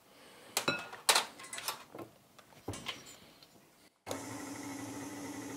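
A few sharp clicks and knocks as a KitchenAid Artisan stand mixer and its flat beater are handled. About four seconds in, the mixer's motor starts and runs with a steady hum as the beater works through crumbly dough.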